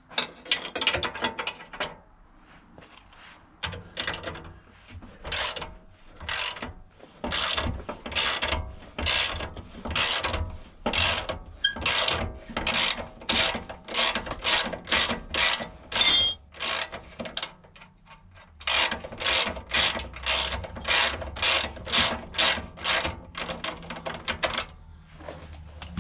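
Hand ratchet wrench clicking in quick repeated strokes as a large suspension-arm bolt is wound out by hand, with short pauses about two seconds in and again past the middle.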